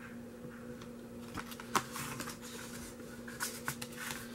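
A DVD disc and its paper sleeve being handled: light rustles and clicks, with a sharper tap about a second and a half in, over a steady low hum.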